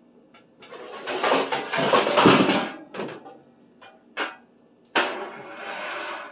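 Metal baking pans clattering, then a sheet pan scraping and clanking onto the lower wire rack of an electric oven. The loudest rattle comes in the first half, followed by two sharp clanks and a scrape near the end.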